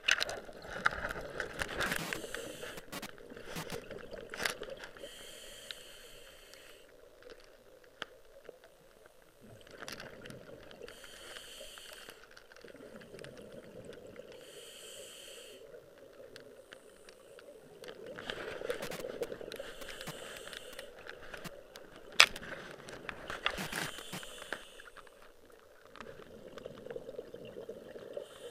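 Scuba diver breathing through a regulator underwater: hissing inhalations alternating with crackling bursts of exhaled bubbles, in an uneven cycle of a few seconds. A single sharp click about two-thirds of the way through is the loudest moment.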